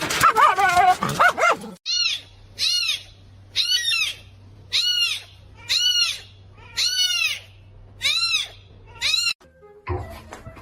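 A pet crying over and over. A wavering cry comes first, then a string of short calls that each rise and fall in pitch, coming just under one a second, which stop shortly before the end.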